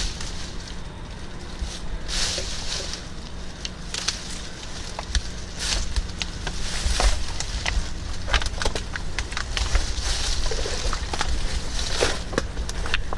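Footsteps crunching through dry leaf litter and cut mangrove brush, with twigs snapping and branches swishing past in irregular crackles.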